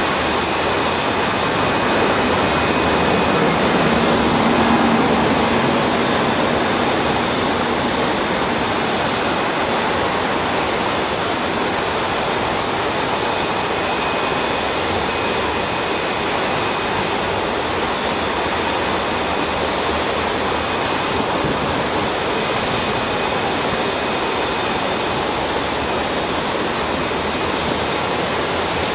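Airbus A340-600's four Rolls-Royce Trent 500 turbofans at taxi power: a steady rushing hum with a thin high whine, swelling slightly a few seconds in. Two brief high squeaks come partway through.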